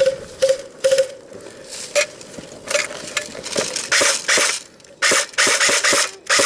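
An irregular series of crunching, rustling noises, about a dozen in all, coming closer together in the second half.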